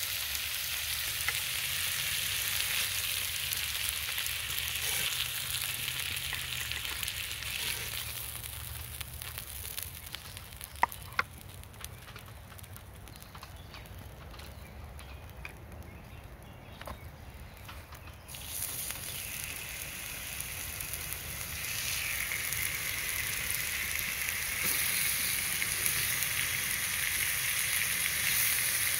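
Meat sizzling on a hot flat stone slab over a wood fire. The sizzle dies down for a stretch near the middle, with a couple of sharp clicks, then swells again as raw bone-in chops are laid on the hot stone.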